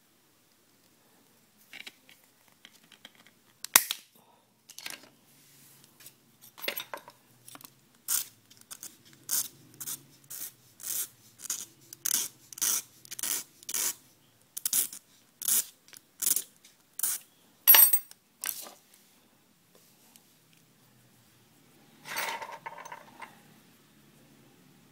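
A narrow flat steel tool rasping the tip of a thin wooden stick in short strokes, scattered at first and then about two a second. It stops for a few seconds, then there is one longer rub near the end.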